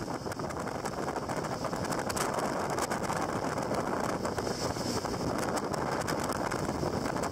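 Jet boat running at speed, heard from on board: a steady rush of wind buffeting the microphone, mixed with engine and water noise, building a little over the first second and then holding.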